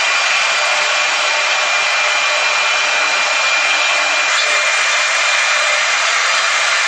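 CNC router spindle running at high speed while carving wood: a steady high hiss with a thin, constant whine.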